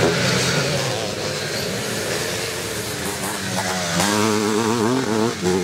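Engines of vintage twinshock motocross bikes racing on the track, their pitch rising and falling as the riders work the throttle, a nearer bike growing louder about four seconds in.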